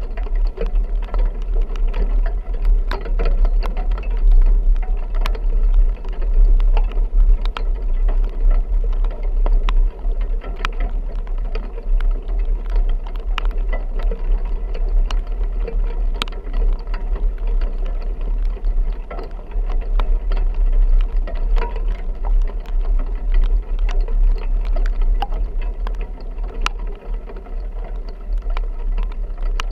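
Vehicle driving in a rain storm: a steady low rumble with many scattered sharp ticks and rattles, rain hitting the vehicle as it bounces along.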